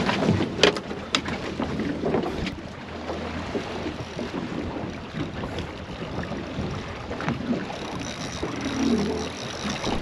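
Wind buffeting the microphone and water lapping against a small fishing boat's hull, with a few sharp knocks on deck in the first two and a half seconds.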